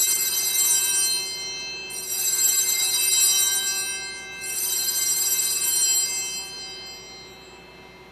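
Altar bells rung three times for the elevation of the chalice at the consecration, each shake ringing bright and high, then fading away.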